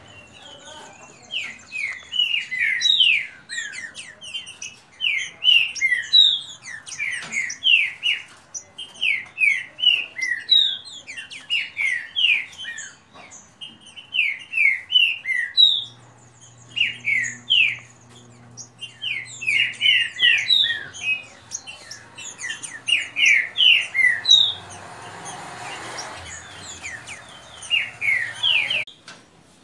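Caged green-winged saltators (trinca-ferro) singing fast, loud phrases of quick whistled notes, the birds answering each other in a song contest. A faint low hum runs under the second half.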